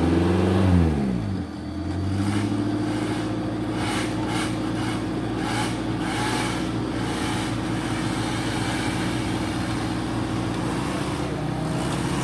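Off-road 4x4 engine revs up sharply and drops back in the first second and a half, then runs at steady, raised revs, with a few short clatters about four to seven seconds in.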